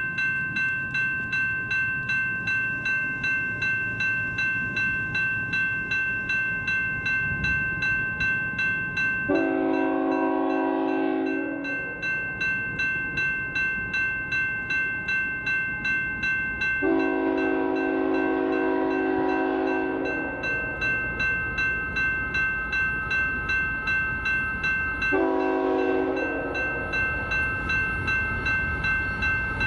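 Railroad grade crossing bell ringing steadily in rapid strokes, while the horn of the approaching BNSF train's lead locomotive, a GE Tier 4 Evolution-series unit, sounds two long blasts and one short one. This is the start of the long-long-short-long warning for the crossing.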